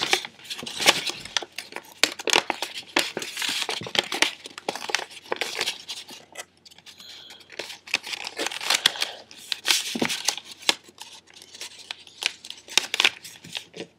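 A sheet of printer paper being handled and folded into an origami petal fold: irregular crinkling and crackling rustles as the paper is lifted and creased flat, with a quieter stretch about halfway through.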